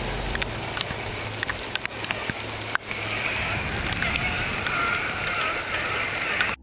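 Scale RC trail truck crawling over wet river stones: scattered clicks and knocks of tyres and rocks, one louder knock nearly three seconds in, with a steady wavering whine over the last few seconds as the truck passes close.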